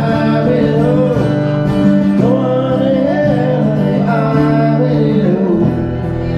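A man singing a drawn-out, wordless closing phrase over a strummed acoustic guitar. The voice drops out about five and a half seconds in and the guitar plays on alone.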